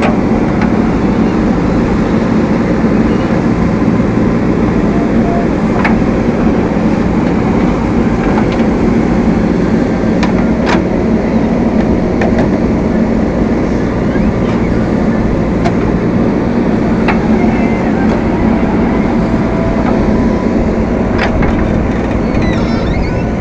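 Heavy diesel machinery engine running steadily at a constant load, with a few sharp metallic knocks.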